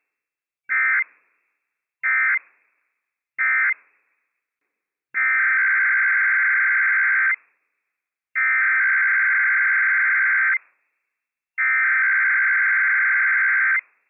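Emergency Alert System SAME data bursts, the harsh two-tone digital screech. Three short end-of-message bursts come about a second and a half apart, closing one Required Weekly Test. After a pause, three longer header bursts of about two seconds each open the next test.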